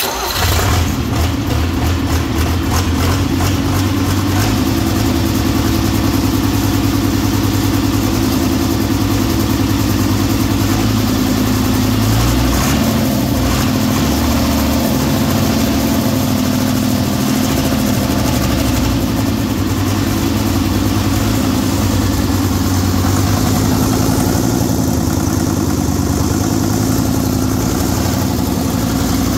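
Deutz F5L912 air-cooled five-cylinder diesel engine, out of its vehicle, catching right at the start and then running steadily at idle.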